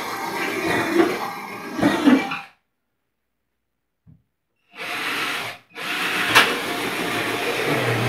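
Cordless drill boring 10 mm holes up through the top of a refrigerator cabinet. The sound cuts out completely for about two seconds near the middle, then resumes, with a sharp click about six seconds in.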